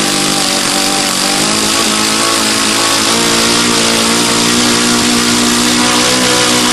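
Small custom-built model engine running fast on a test stand and turning a propeller: a steady, high-pitched buzz. Its pitch wavers slightly about two seconds in, then holds steady.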